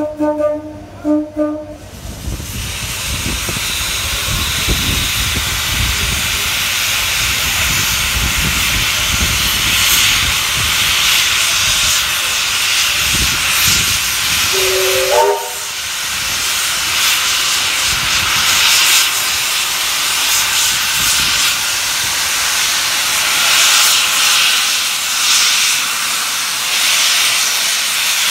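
Steam locomotive giving two short whistle toots, then a loud steady hiss of escaping steam, with a brief whistle note stepping upward about halfway through.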